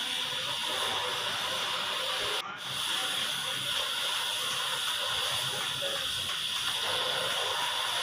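Steady high-pitched hiss, broken by a brief dropout about two and a half seconds in.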